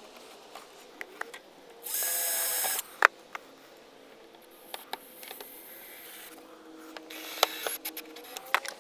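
Small cordless drill running in one short burst of about a second, drilling a hole through the plastic RV fender shroud into its center support bracket. It is followed by a sharp click and scattered clicking and tapping from handling the tool and fender.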